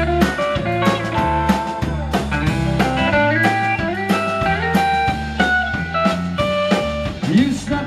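Live band playing an instrumental break: a Telecaster-style electric guitar takes a melodic lead line with some bent notes, over electric bass and a drum kit keeping a steady beat.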